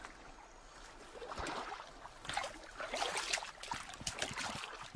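Water sloshing and trickling, with small irregular knocks and splashes, growing louder after about two seconds.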